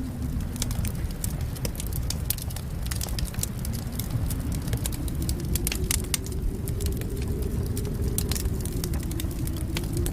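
Wind howling in a tone that dips and then rises again, over a deep rumble, with a wood fire crackling in frequent sharp pops throughout.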